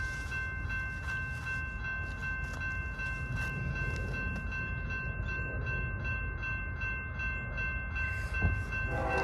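Railroad grade-crossing bell ringing steadily, about three strikes a second, over the low rumble of a train. Right at the end a locomotive horn begins to sound.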